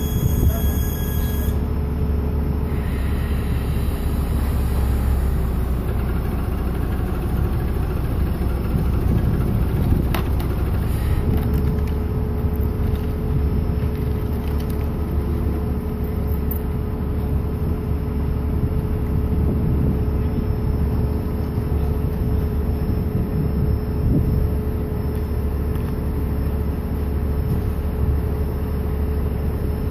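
A heavy engine running steadily with a low rumble, with a steady whine setting in about eleven seconds in.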